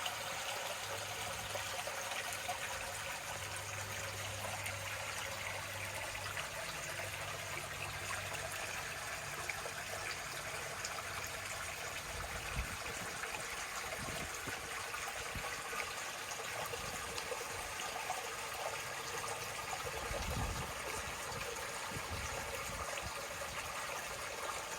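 Lake water lapping and trickling steadily at the shore. A faint low hum runs through the first ten seconds or so, and a few brief low rumbles come in the second half.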